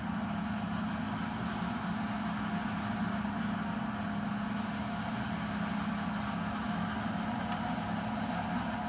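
Self-propelled forage harvester chopping maize while a Ford 8670 tractor with a silage trailer runs alongside: a steady mix of diesel engines and the chopper running under load, unchanging in pitch and level.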